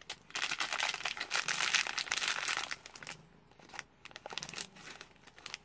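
Foil blind-bag packet crinkling as it is handled in the hands. The crackling is dense and loud for the first two to three seconds, then thins to scattered crackles.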